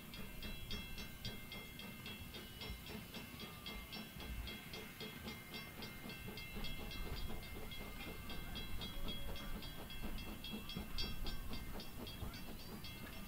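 Monson 3, a two-foot-gauge steam locomotive, running with its passenger train: a steady low rumble of the train on the rails, with a fast even ticking at about five a second over it.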